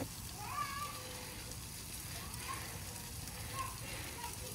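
Tomahawk steak sizzling steadily as it cooks, with faint voices in the background.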